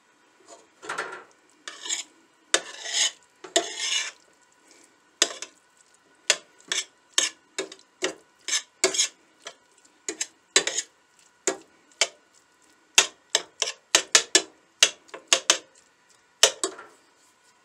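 Metal spoon stirring and scraping ground chicken taco filling in a stainless steel skillet, clinking against the pan. A few longer scraping strokes in the first four seconds give way to quicker, sharper scrapes and taps.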